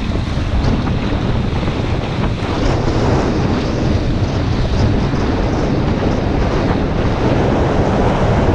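Wind buffeting an onboard camera's microphone over water rushing and spraying past the hulls of a Hobie 16 catamaran sailing fast. Steady and loud throughout.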